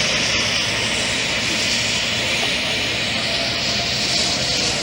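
Airplane engine in flight, a loud steady drone.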